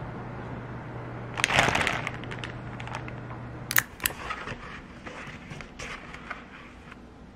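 Clear plastic bread bags crinkling as they are handled, loudest about a second and a half in. From about four seconds, a few sharp taps and light rustling of a paper sheet being unfolded and smoothed on a table.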